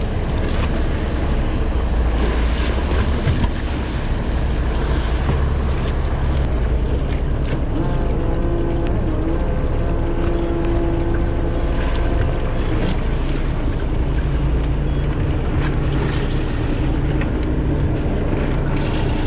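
Fishing boat's engine running steadily, with wind buffeting the microphone and the wash of water. A thin whine comes and goes over the engine from about halfway through.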